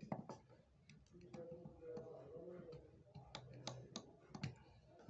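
Irregular, quiet sharp ticks of a small steel hand tool clicking against the bezel of a silver ring as it is worked by hand.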